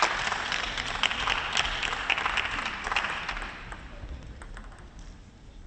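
Audience applause in a sports hall, dense clapping that dies away over about three seconds to a quiet hall.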